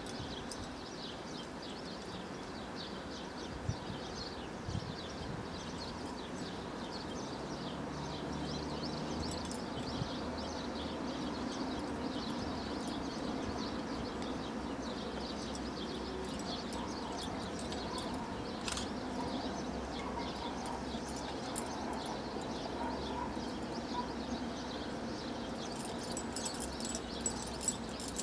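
Small birds chirping over a steady outdoor background hum.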